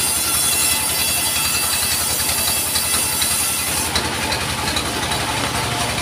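Sawmill running steadily with a fast, even engine pulse while its blade rips lengthwise through a log. The high hiss of the cut drops off about four seconds in as the cut finishes, and the machine keeps running.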